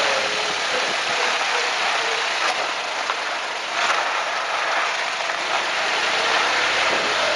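Suzuki Jimny JB23 driving, heard from a camera fixed to the chassis frame: steady road and engine noise with two clunks, about 2.5 and 3.8 seconds in. The clunks are the "kakon" knock from the suspension that appeared after off-road forest-track driving, like parts shifting against each other.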